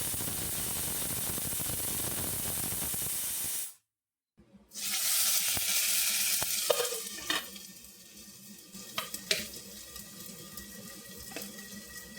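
Food sizzling as it fries in a pan, in two separate stretches with a brief cut of silence between them; in the second the sizzle dies down and a few knocks of a utensil against the pan sound over it.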